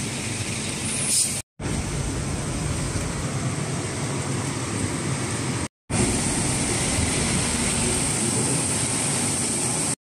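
Steady city street noise with road traffic, an even hiss and rumble with no clear single event, cutting out to silence twice for a moment.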